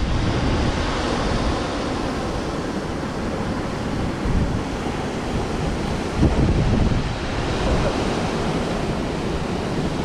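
Steady rush of water with wind buffeting the microphone in uneven low gusts.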